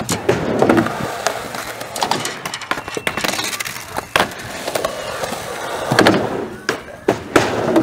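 Skateboards rolling on concrete, with several sharp clacks of boards hitting the ground, the loudest about six seconds in.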